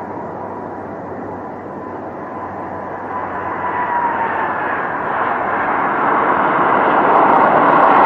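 Jet airliner's engines on landing approach: a steady whine over a rushing noise that grows steadily louder, the whine dipping slightly in pitch about halfway through.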